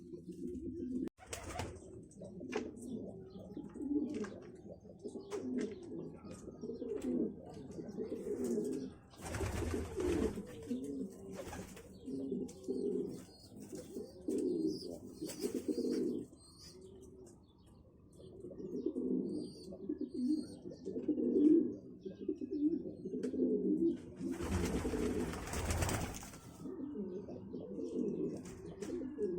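Several pigeons cooing continuously, their low calls overlapping, with a few faint high chirps from a small bird. Twice, about ten seconds in and again near the end, a brief rushing noise swells over the cooing.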